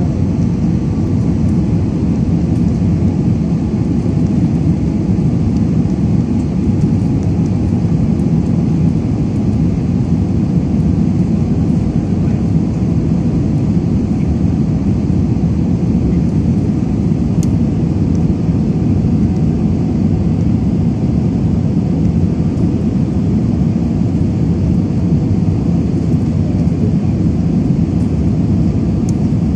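Steady low rumble of engine and airflow noise inside a jet airliner's cabin, heard from a window seat as the plane descends on approach to land.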